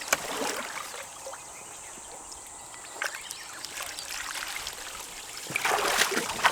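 Water trickling steadily in a koi pond, with a short burst of splashing near the end.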